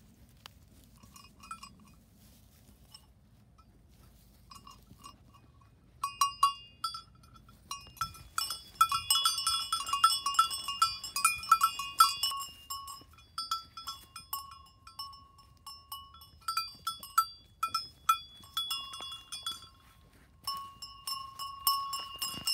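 Small metal bell on a brown mountain sheep's neck ringing in quick, irregular strikes as the sheep moves its head. It is faint and sparse for the first few seconds, then rings busily for most of the rest.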